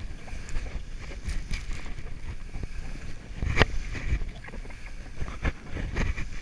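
Skis running through deep powder snow with wind noise rumbling on the camera's microphone, broken by a few sharp knocks, the loudest about three and a half seconds in.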